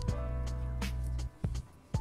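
Background music with a steady beat over a sustained bass line; the bass drops out about a second and a half in, leaving a few sparse beats.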